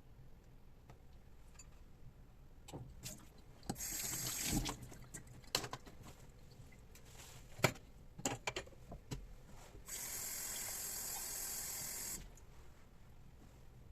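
Water running in two spells, a short one about four seconds in and a longer one of about two seconds near the end, with clinks and knocks of dishes being handled between them: water being added to the cut pears before they are steamed.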